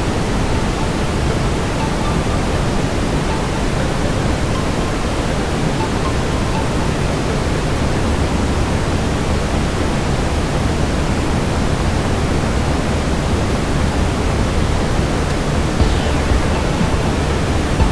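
Steady brown noise: an even, deep hiss strongest in the low end, with a couple of faint pops near the end.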